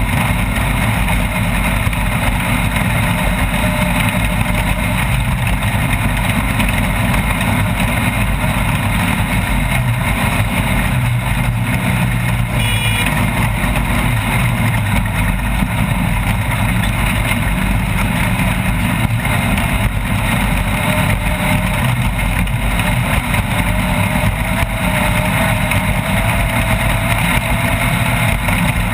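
Off-road race vehicle's engine running steadily under way, mixed with constant loud driving noise.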